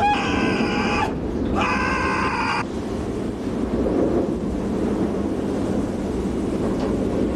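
A man's two high, held wails of panic, about a second each, over the steady low rumble of a ship's engine room and turning propeller shaft.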